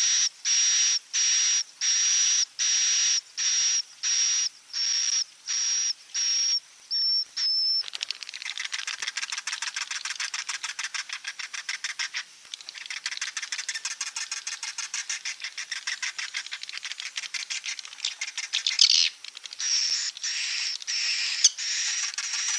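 Swiftlets (burung walet) calling in a roosting-call ('inap') lure recording. First comes a run of evenly spaced, high, buzzy calls, about three every two seconds. About eight seconds in it turns into a dense, rapid twittering chatter, and spaced calls come back near the end.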